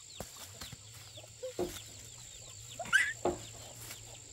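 Chickens clucking: a few short calls, the loudest about three seconds in.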